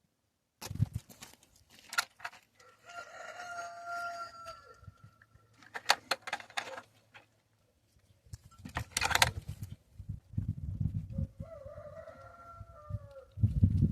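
Rooster crowing twice, once a few seconds in and again near the end, amid several sharp knocks and clatter and a low rumbling noise.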